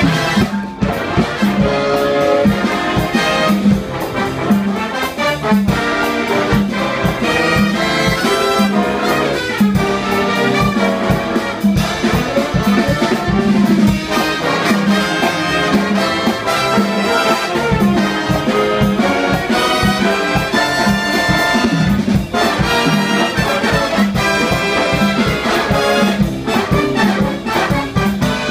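Big band jazz ensemble playing, with trumpets and trombones over bass and drums keeping a steady beat.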